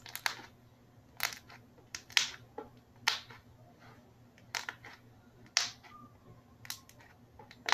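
White slime being squeezed and folded by hand against a plastic board, making a sharp pop or click about once a second.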